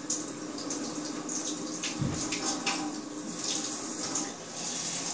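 Water running from a kitchen faucet, stopping a little after four seconds in, with a few light clinks and a low bump about two seconds in.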